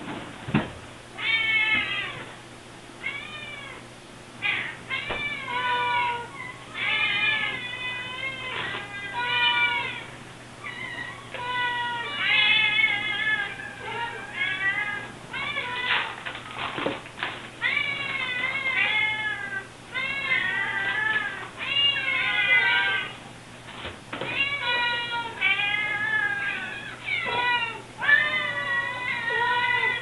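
Several Siamese and Oriental kittens meowing insistently for food, one call after another and often several at once, each meow rising and falling in pitch.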